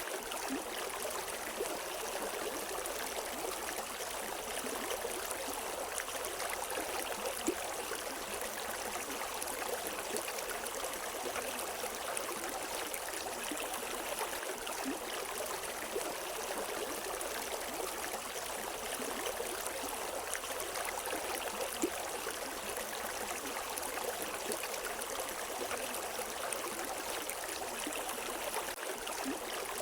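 River water flowing and splashing steadily over rocks, an even rushing with small splashes.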